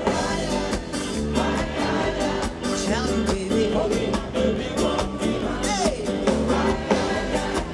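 Live band playing with a singer: electric bass, drums and keyboards under a sung vocal line that slides in pitch.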